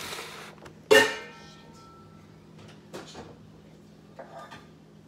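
Kitchen handling sounds at a granite counter: one sharp, loud clank about a second in that rings briefly, like a dish or pan knocked on the counter. A couple of lighter knocks and a short rustle follow.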